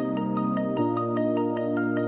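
Background music: soft electronic track with short plucked mallet-like notes over sustained chords that change about every second.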